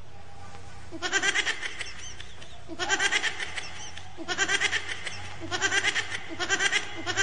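A clown's exaggerated comic crying: about five quavering, bleat-like wails of roughly a second each, with short gaps between them.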